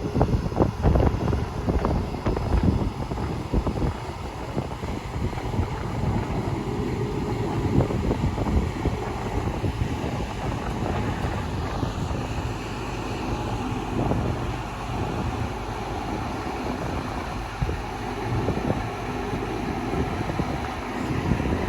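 Wind buffeting the microphone over the steady low rumble of a running vehicle engine.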